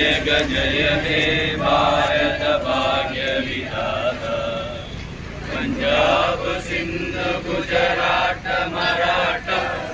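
A crowd of men and women singing together in unison, a patriotic song sung standing at attention at a flag hoisting.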